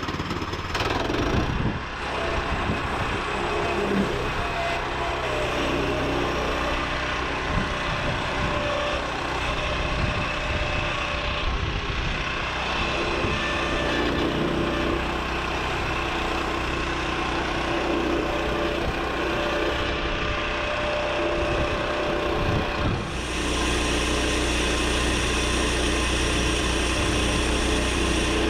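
Woodland Mills 122 band sawmill running, its engine at a steady speed while the blade saws through a cherry log. The sound grows steadier and brighter about 23 seconds in.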